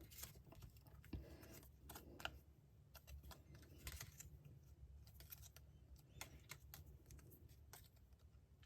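Faint, irregular clicks and light rustling of small paper photo prints and packaging being handled, over low room hum.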